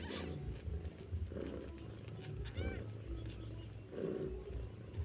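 Kittens jostling to suckle milk, making low sounds in short spells, with one short mew that rises and falls about two and a half seconds in.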